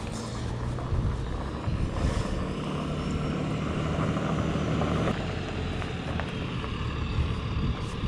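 Pickup truck towing a shed on a trailer, its engine running steadily as it pulls up toward the microphone.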